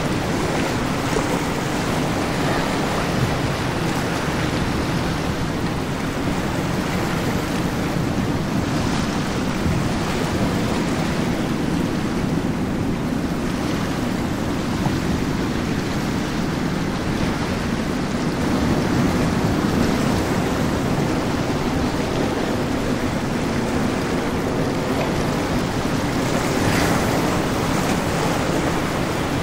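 Steady rush of waves and wind on the microphone, mixed with the wash of powerboats and motor yachts running through the water.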